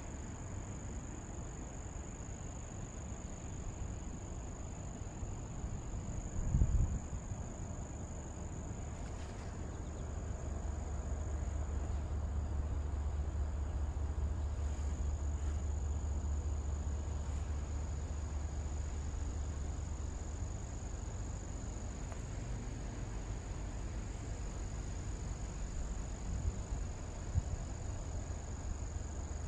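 Insects droning steadily on one high note. A low rumble comes up through the middle, and a single thump sounds about six and a half seconds in.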